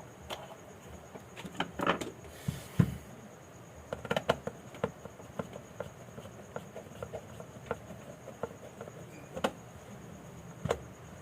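Scattered small clicks and taps, with a brief scrape a little over two seconds in, as the plastic housing of a Bajaj Pulsar 150 digital instrument meter is handled and opened.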